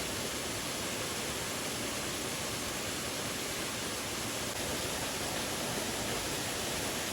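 Steady rushing of stream water, an even unbroken hiss.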